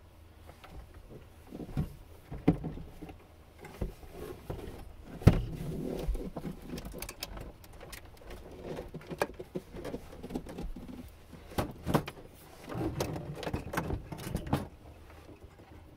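Irregular knocks, clunks and rustling as objects are shifted and handled by hand, with one sharp knock about five seconds in.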